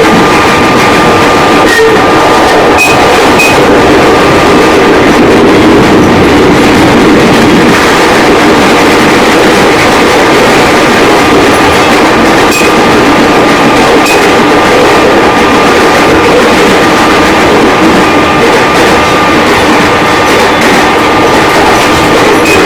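JR 205 series electric commuter train running at steady speed, with a constant rumble and a steady high whine that does not change pitch. The uploader finds the whine strange and cannot explain it.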